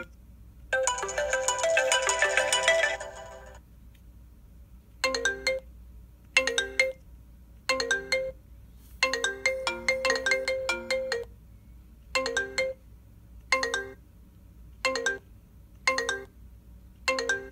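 Built-in iPhone ringtones previewed one after another through the phone's loudspeaker: a longer melodic tone about a second in, then a string of short chiming snippets, each cut off as the next tone is picked, about one a second.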